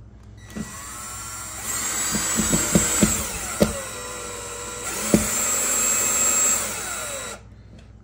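Cordless drill driving a screw through soft PVC plastic into a plastic vent flange. The motor whirs in two louder runs with several sharp clicks between them, then stops shortly before the end.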